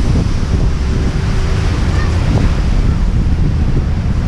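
Wind buffeting the microphone on a moving tour boat: a loud, steady rumble with the rush of water underneath.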